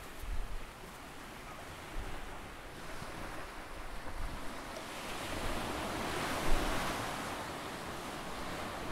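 Ocean surf breaking and washing up a sandy beach, one wave swelling to its loudest about six or seven seconds in and then easing back. Wind buffets the microphone briefly near the start.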